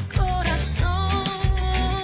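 Background pop music: a melody over bass and a steady beat.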